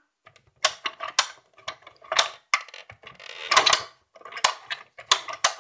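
Hard plastic clicks and knocks from a Littlest Pet Shop playset and figurine being handled, about eight sharp taps spaced unevenly, with a longer rattling clatter a little past the middle.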